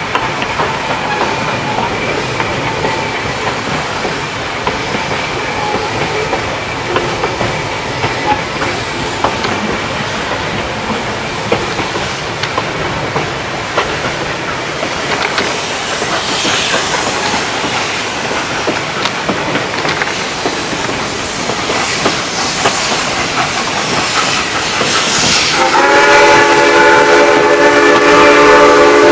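Narrow-gauge passenger train rolling along, its cars clattering and rattling steadily over the rails. Near the end the steam locomotive's whistle starts a long, loud chord that keeps going.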